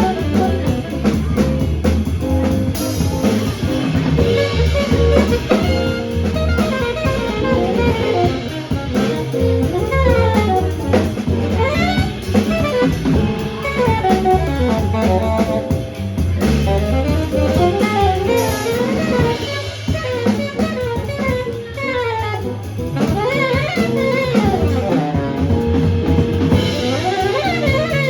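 Small jazz combo playing live: saxophone, piano and bass over a drum kit, with fast melodic runs over a steady groove.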